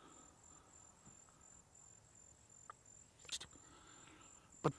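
Crickets chirping in a faint, high, evenly pulsing trill, with a few soft clicks and one sharper knock near the end.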